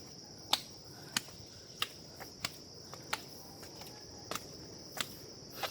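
Steady high-pitched insect drone, with sharp footsteps on steps about every two thirds of a second.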